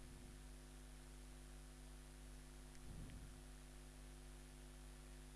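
Near silence: a faint, steady electrical hum in the recording's background.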